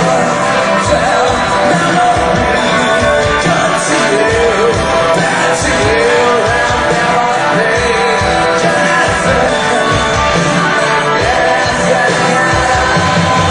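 Live rock band playing loudly, with drums keeping a steady beat, guitars and a sung lead vocal over the top.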